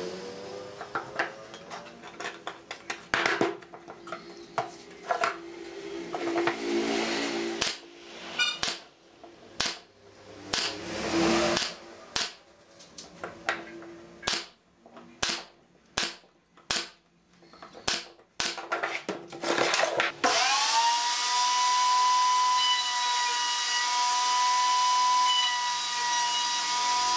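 A pneumatic nail gun fires a string of sharp shots, roughly one a second, mixed with knocks of wood being handled. About twenty seconds in, a router's motor spins up and runs with a steady high whine.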